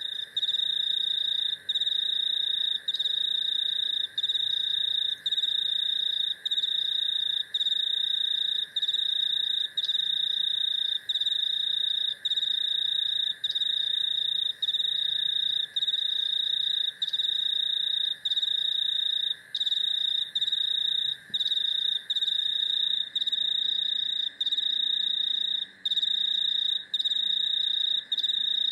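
Chorus of crickets and cicadas: a loud, high, continuous trill that drops out briefly about once a second, over a steady lower buzzing drone. About two-thirds of the way through, a faint higher hiss above them changes to quick repeated pulses.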